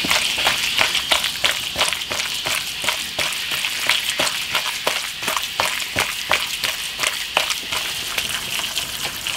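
Sliced raw beef being mixed by hand with its seasonings and sauces in a bowl to marinate: a run of short wet slaps and squelches, about three a second, over a steady hiss.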